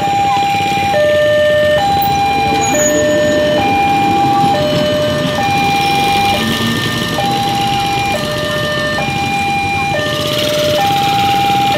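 Railway level-crossing warning alarm sounding a steady two-tone signal, a higher and a lower tone alternating about once a second, while a train passes over the crossing with a rumble beneath.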